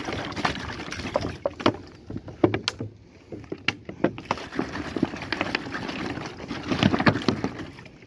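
Water sloshing out of a hand-held plastic bottle and splashing onto dry soil and stones, in uneven, irregular splashes.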